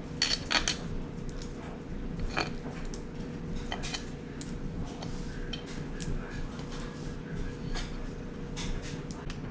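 Scattered metallic clicks and clinks of small steel bolts and parts being handled and set down while the Honda CRF150R engine's covers are taken apart, over a steady low hum.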